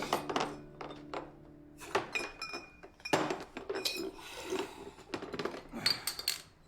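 Dishes, cutlery and glasses clinking and knocking on a table, some strikes leaving a brief high ring. Soft background music with held low notes ends about two seconds in.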